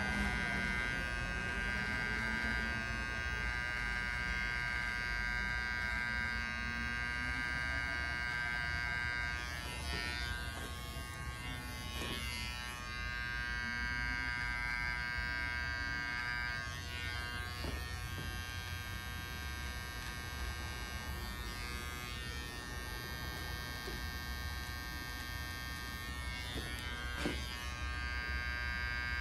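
Cordless hair clipper running with a steady electric buzz as it trims a beard, with a few faint clicks along the way.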